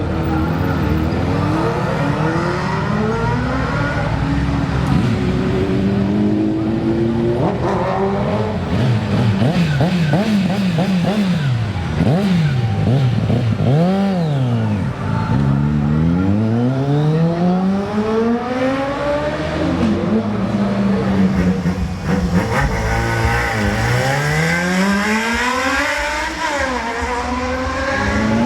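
Inline-four motorcycle engines revving. The pitch climbs and falls again and again, with a run of quick throttle blips about a third of the way in and long rising revs later.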